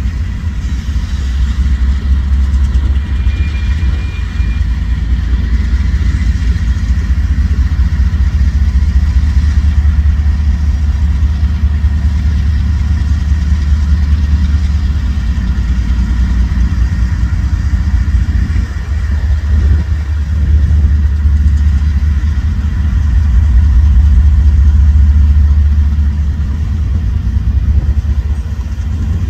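Diesel-electric freight locomotives running in a rail yard, a deep steady rumble that swells about three-quarters of the way through as a Norfolk Southern locomotive draws near.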